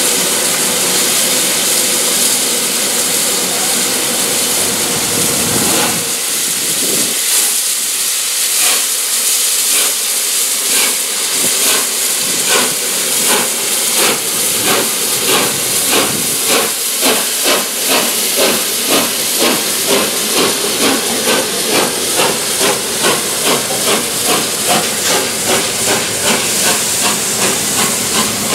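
Three-cylinder steam locomotive 60163 Tornado (LNER A1 Pacific) starting away with its train. Steady steam hiss for the first six seconds; then exhaust beats set in about seven seconds in and quicken steadily, over the hiss of steam from the cylinders.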